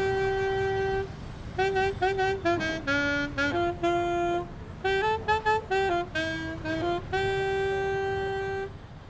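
A saxophone playing a slow melody, one note at a time. It opens on a long held note, moves through a run of shorter notes, and ends on another long held note. Low traffic rumble runs underneath.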